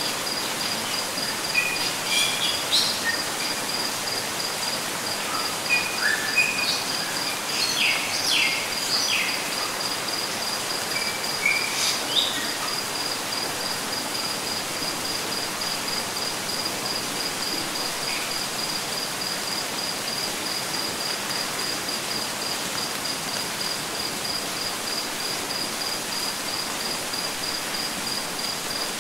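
Light rain ambience: a steady hiss of falling rain with an insect chirping in an even, rapid pulse throughout. A few short bird chirps come in the first half.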